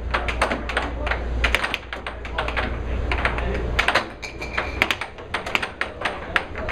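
Air hockey puck and mallets clacking in a fast rally: rapid, irregular sharp clicks as the plastic puck is struck and bangs off the table's rails, over a low hum that fades about four seconds in.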